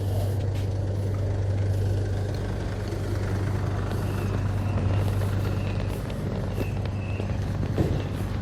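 A heavy vehicle engine running steadily with a deep, even hum. Short high beeps come every second or so through the second half.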